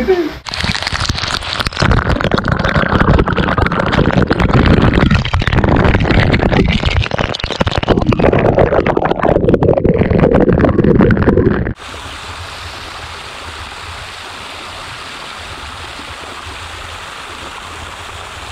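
Artificial waterfall on a mini golf course, water splashing down over fake rock close to the microphone, loud and uneven. About twelve seconds in it cuts to a steadier, quieter rush of falling water.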